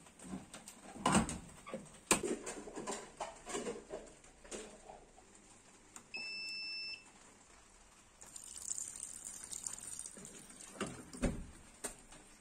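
Top-loading washing machine being handled and switched on: a few knocks and clicks as the lid is closed, then about six seconds in a single steady electronic beep of just under a second as a control-panel button is pressed. Later come a hiss and a couple more knocks.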